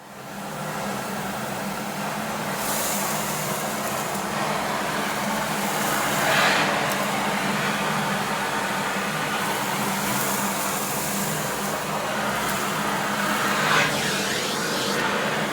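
Nilfisk VP600 commercial vacuum cleaner running: a steady motor hum under a rushing of air that comes up to speed over about the first second. Two brief surges in the rushing sound, about six and a half and fourteen seconds in.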